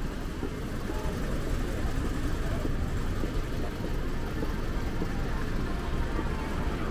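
Steady city street noise, mostly a low rumble of road traffic, with no single event standing out.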